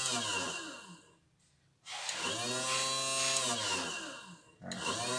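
Electric bobbin winder's small motor whining and winding down to a stop about a second in. It starts up again with a rising whine about two seconds in, runs steadily, then winds down and restarts near the end, stopping and starting as its press-lever auto-stop is worked.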